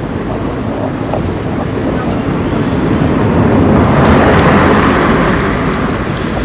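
Road traffic noise: a vehicle passing close by, swelling to a peak about four seconds in and then fading.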